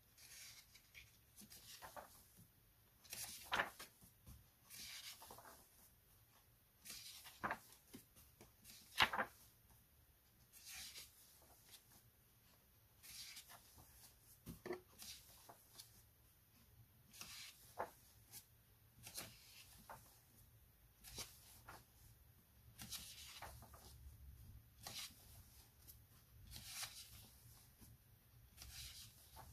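Paper pages of a softcover colouring book being turned by hand one after another, each turn a faint rustle and swish, about every second or two.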